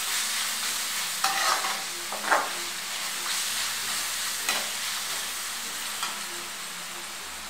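Shredded cabbage, carrot and capsicum sizzling in oil in a metal kadai, stirred and tossed with a perforated metal spatula. A few sharper scrapes and taps of the spatula against the pan stand out over the steady sizzle.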